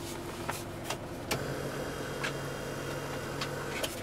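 Several light, sharp clicks, about five spread over four seconds, over a low steady hum in a car cabin. The hum comes in about a second in and stops just before the end.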